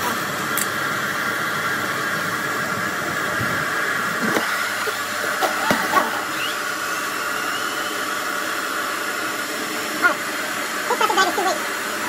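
Hair dryer running steadily, blowing air into an inflatable toy's valve: a constant rush of air with a steady motor whine, broken by a few brief handling knocks.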